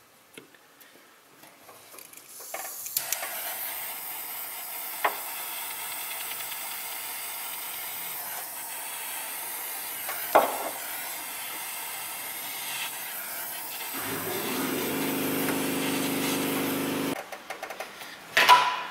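Steady hiss of a heat tool shrinking heat-shrink tubing over a freshly soldered wire repair, with a few sharp clicks. A low hum joins for the last few seconds, then both stop together.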